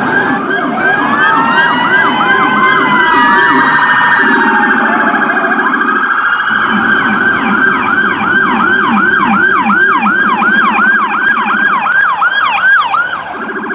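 Several electronic emergency-vehicle sirens sounding together: a fast yelp repeating about three times a second over slower rising-and-falling wails and a low warbling tone. The fast yelp stops near the end.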